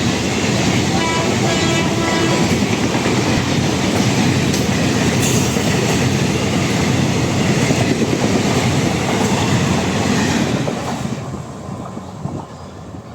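Express passenger train passing at speed: a loud, steady rumble and rattle of coaches on the rails that falls away quickly about eleven seconds in as the end of the train goes by.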